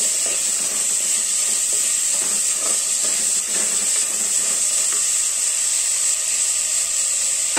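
Sliced onions, shallots and green chillies frying in hot oil in a clay pot: a steady sizzle with a high hiss. A ladle stirs and scrapes against the pot, and the stirring stops about five seconds in.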